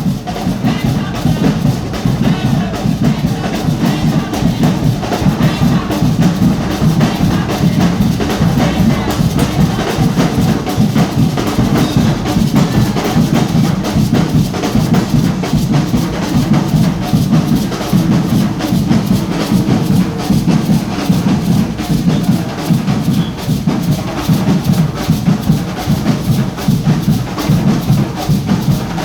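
Carnival percussion band playing drums in a fast, driving, unbroken rhythm.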